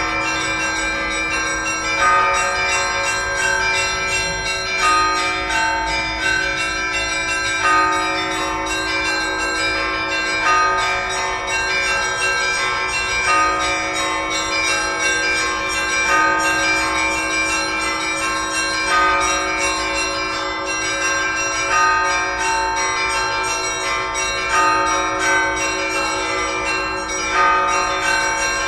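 Russian Orthodox church bells ringing a continuous peal, many bells sounding together in a repeating pattern with a louder stroke about every three seconds.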